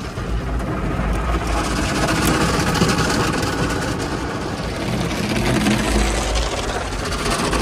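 Spinning cloth brushes of an automatic car wash scrubbing over the car's windshield and side windows, with water spraying, heard from inside the car. Very loud, swelling about a second and a half in.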